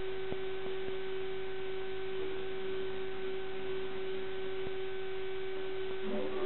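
A steady single-pitched tone over a constant hiss, with a couple of faint clicks in the first second.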